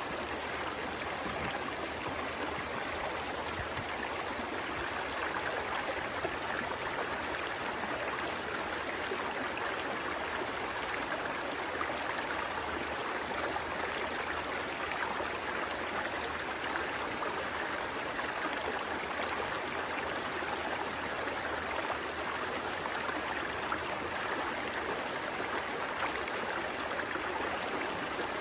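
A stream running steadily, a continuous even rush of water with no breaks.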